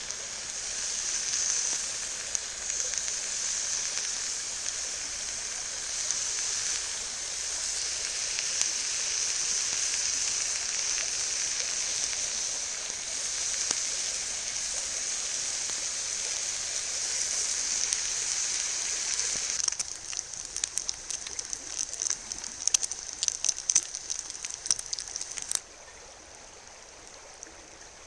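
Bacon sizzling in a cast iron pan over a campfire, a steady high hiss that turns to a run of sharp spattering pops. Near the end it drops away abruptly to a fainter hiss.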